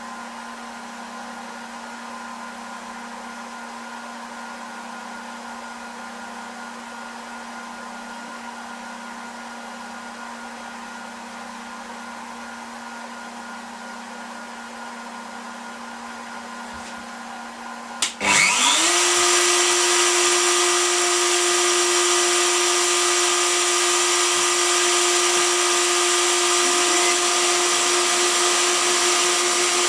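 Hobby CNC router: a steady electrical hum for about eighteen seconds. Then the spindle motor switches on, whines up to speed within about a second, and runs loud and steady at a constant high pitch.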